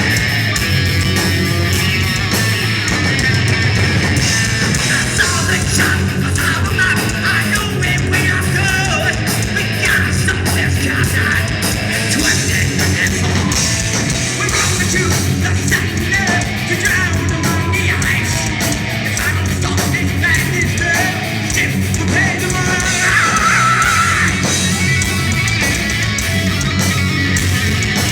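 Heavy metal band playing live at full volume: distorted electric guitars over bass and drums, without a break.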